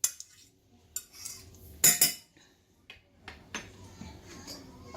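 Metal fork clinking and scraping against a pot while fluffing cooked rice, with a few sharp clinks, the loudest about two seconds in.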